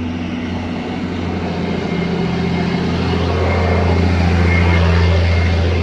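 A loud machine running with a steady low drone. It grows louder over the first few seconds and eases a little near the end.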